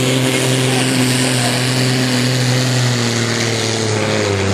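Diesel engine of a vintage bonneted truck running steadily at the start line of a truck pull, its pitch sagging a little lower near the end.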